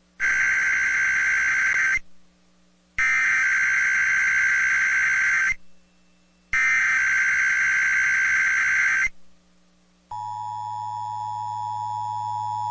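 Emergency Alert System SAME header on an FM broadcast: three bursts of buzzy digital data tones, each about two and a half seconds long with a short gap between them, marking the start of an EAS Required Weekly Test. About ten seconds in, the steady two-tone EAS attention signal begins.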